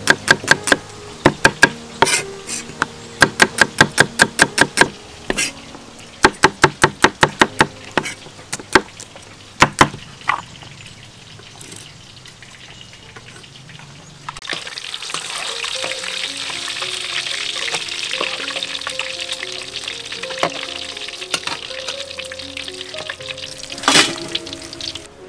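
A cleaver chopping shallots on a round wooden chopping block, in quick runs of sharp knocks for about the first ten seconds. After a short lull, a steady sizzling hiss of frying takes over for the last ten seconds, with one sharp knock near the end.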